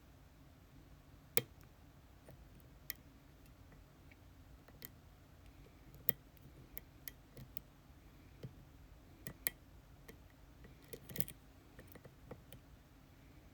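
Irregular small sharp clicks of lock picks and a tension wrench working inside an ASSA Twin Exclusive pin-tumbler cylinder, about a dozen scattered clicks with a quick cluster near the end.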